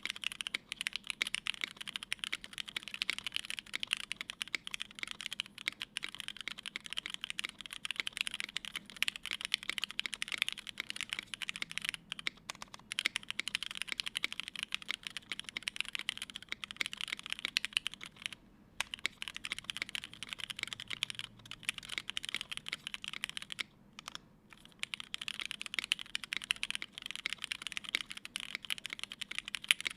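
Fast continuous typing on a Moontower v1 mechanical keyboard with an aluminium plate, lubed and filmed Hyperglide black linear switches and CRP keycaps, with brief pauses twice, once around two-thirds of the way through.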